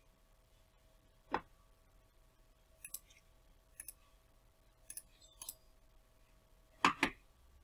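Computer mouse clicking while a chart is being drawn on: a few sharp clicks, several in quick pairs, and two duller, louder taps, the loudest near the end.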